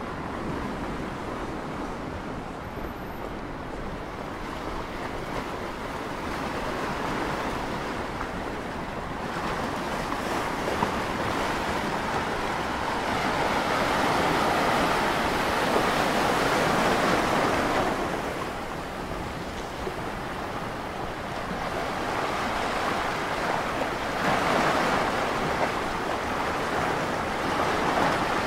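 Sea waves breaking and washing over rocks along the shore, a steady rushing surf that rises and falls in long surges, loudest about halfway through and again near the end.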